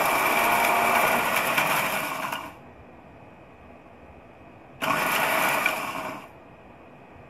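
Electric spice grinder pulse-grinding whole roasted spices into powder. It is running at the start and winds down about two and a half seconds in, then a second, shorter pulse starts about five seconds in and dies away after a second and a half.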